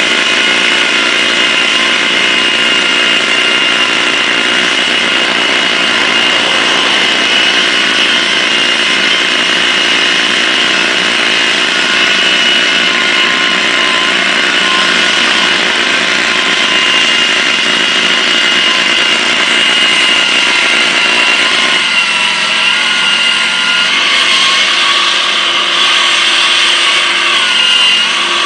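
Concrete saw running steadily, its blade cutting through concrete pavement to free a panel for replacement. A continuous loud grinding with a steady high whine, its lower sound thinning about 22 seconds in.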